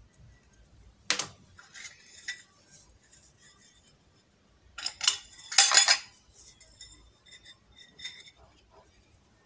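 Small fluted metal tartlet tins clinking as they are handled and set down on a stone counter: one sharp clink about a second in, a louder cluster of clinks around the middle, and a few lighter ones near the end.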